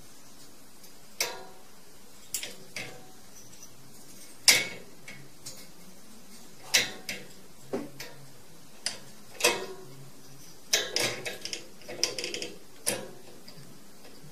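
A cat pawing at the metal slide-bolt latch of a wire cage door, making irregular metallic clicks and rattles. The loudest click comes about four and a half seconds in, and the clicks come faster in a short run near the end.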